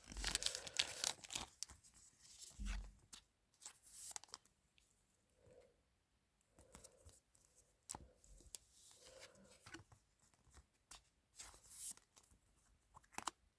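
Quiet, intermittent rustling and tearing of a foil booster-pack wrapper being opened, with the soft clicks of trading cards being handled.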